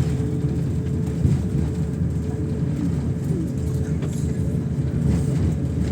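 Steady low drone inside an airliner cabin, the engines and air conditioning running with a steady hum, as the plane taxis before takeoff.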